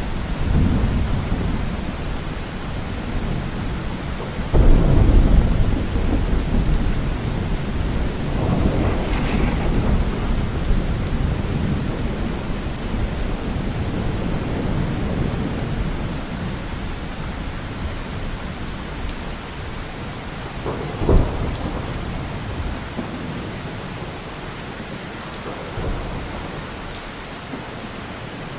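Steady rain with rolling thunder. The heaviest rumble comes about four and a half seconds in, and a sharper, short clap of thunder comes about twenty-one seconds in.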